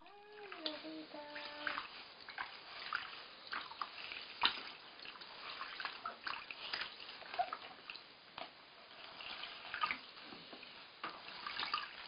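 Bathwater splashing and dripping in a plastic baby bathtub as a hand washes a newborn, in small irregular splashes and trickles.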